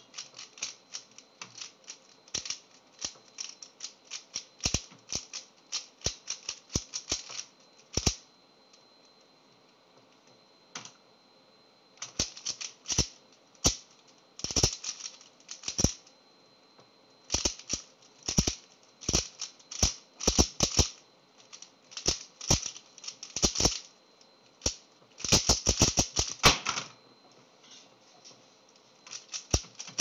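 3x3 speedcube being turned fast by hand: rapid runs of plastic clicking from the layers. About eight seconds of turning, a pause of about four seconds, then a timed speedsolve of about fourteen seconds of dense turning that ends in a quick flurry of clicks.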